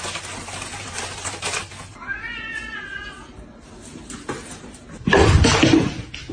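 A cat meows once, a drawn-out call about two seconds in. Near the end comes a louder stretch of noise without pitch.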